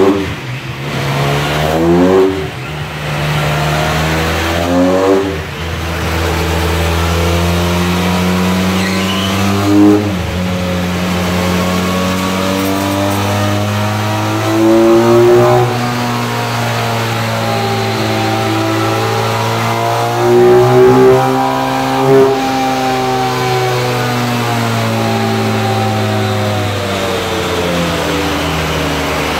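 Benelli TRK502's parallel-twin engine running on a chassis dyno with its stock exhaust and a modified airbox. It is revved in a few short blips at first, then held in longer pulls whose pitch climbs and falls back, and it runs more steadily near the end.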